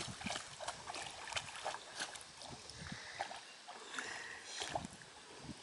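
A dog, an Australian shepherd, wading through shallow pond water, its steps making irregular light splashes and sloshes.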